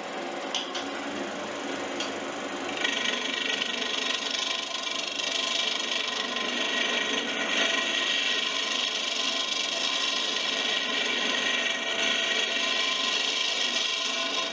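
King Canada woodworking lathe running steadily while a hand turning tool cuts into a spinning laminated Western red cedar paddle loom. The cut starts about three seconds in as a loud, even, scraping noise and stops near the end.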